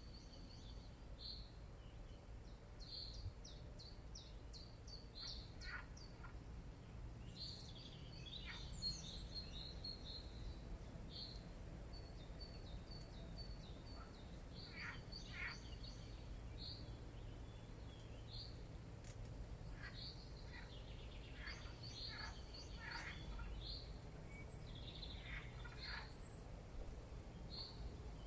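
Wild birds chirping and calling in short, high notes scattered through, some as quick trills, over a faint steady low rumble.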